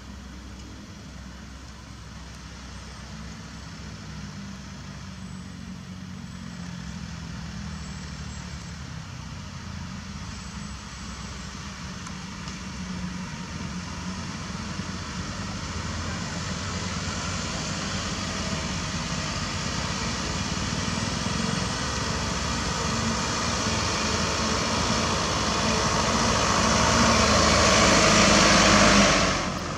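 Isuzu light dump truck's diesel engine running as the truck drives up and passes close by, growing steadily louder and loudest near the end before cutting off suddenly.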